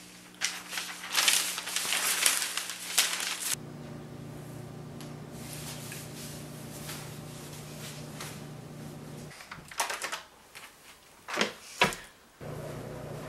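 Newspaper pages rustling and crinkling as they are handled, over a steady low hum. Later come a few short, sharp knocks.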